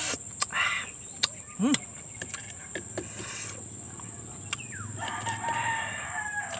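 A rooster crowing, with a long call near the end, over a few sharp clicks from eating.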